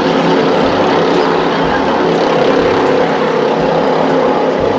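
Offshore racing powerboat's engines running hard at speed: a steady drone over the hiss of the hull through the water.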